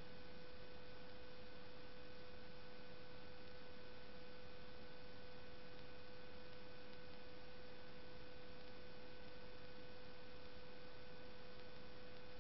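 Steady electrical hum and hiss: a constant mid-pitched whine over an even hiss, unchanging throughout, with no music or voices.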